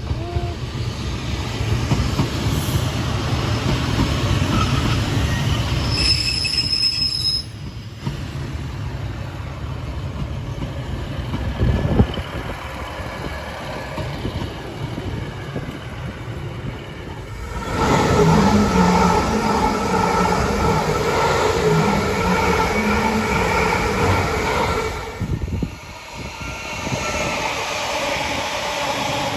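Passenger trains passing at the lineside, heard in several short clips. First a Northern Class 156 diesel multiple unit runs past with a steady rumble and one sharp rail click. Then another multiple unit passes with a loud, steady, high-pitched ringing whine.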